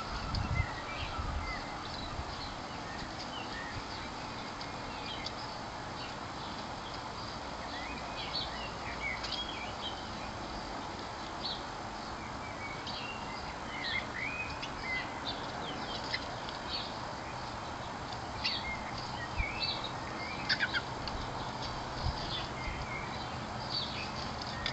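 Small garden birds chirping: many short, high calls scattered throughout, busiest in the middle and towards the end, over a steady background hiss.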